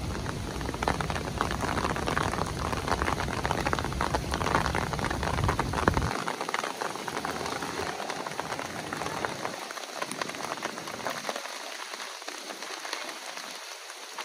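Heavy rain pouring and pattering on surfaces, with many close drop hits. A low rumble underneath drops away suddenly about six seconds in, and the rain then slowly eases.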